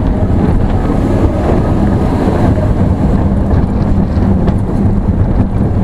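Expedition Everest roller coaster train running along its steel track, heard from a rider's seat as a loud, steady rumble with wind buffeting the microphone.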